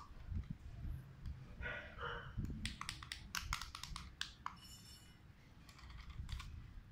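Plastic buttons on a toy RC car's handheld remote control clicking in a quick run of about ten presses, after a brief rustle of handling.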